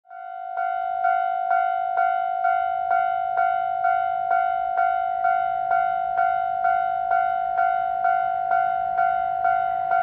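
Japanese railway level-crossing alarm ringing, a bell-like clang repeating about twice a second and starting about half a second in. It signals that a train is approaching the crossing.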